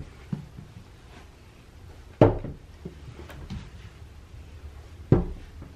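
Two heavy, dull thumps about three seconds apart, with a few lighter knocks between them.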